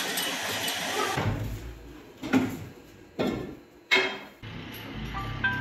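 Metal clunks from the shaft clamp of a paper-reel stand being worked by hand: three sharp knocks about a second apart, then short ringing metallic clinks near the end. A steady machine hum with regular light ticking fills the first second.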